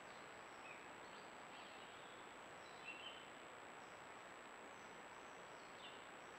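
Near silence: an even hiss and a thin steady high whine, with a few faint short high chirps about a second in, a pair about three seconds in, and one near the end.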